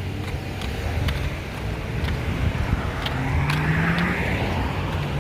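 Road traffic at the intersection, with one car passing close and loudest about four seconds in. A Polara crosswalk button's locator tone ticks about once a second over it.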